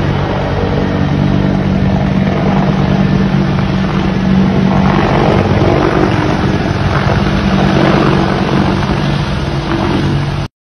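Loud, steady engine drone with a low hum and a rushing roar over it, cutting off suddenly near the end.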